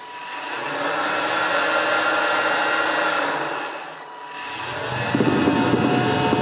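Arduino-driven electric motor of an art installation pumping air in and out of plastic shopping bags in a breathing rhythm. Its whirring swells and fades on a cycle of about four seconds, with the plastic crinkling as the bags move.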